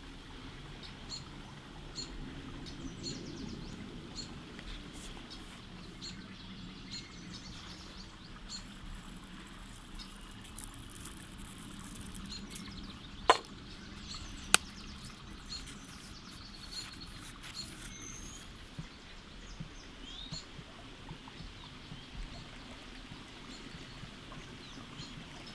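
Small birds chirping with short, repeated high calls over a steady outdoor background hiss. Two sharp clicks, about a second apart, near the middle.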